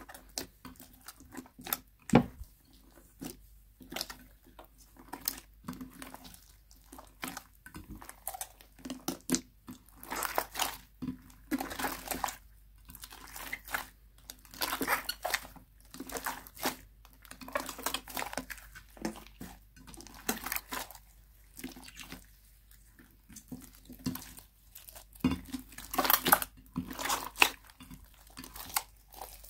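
Hands squeezing, folding and pulling apart a large mass of glittery slime in a glass dish: irregular wet squishes with sticky clicks and crackles, in bursts that come thicker about a third of the way in and near the end.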